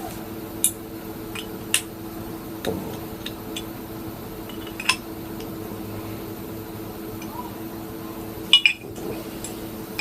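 Small steel ratchet parts clicking and clinking as they are handled and fitted back into the ratchet head: a few short, separate metallic clicks, with a loud double click near the end. A steady low hum runs underneath.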